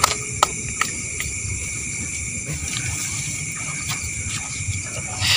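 Steady high chirring of insects, with a low rumble underneath and a few sharp clicks in the first second or so.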